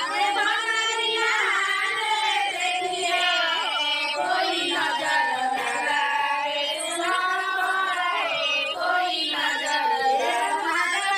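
A woman's voice singing a song, one long unbroken melodic line that glides up and down in pitch.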